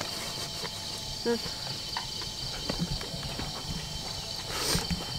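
A goat bleats once, briefly, about a second in, over the steady high chirring of insects. A short rustle comes near the end.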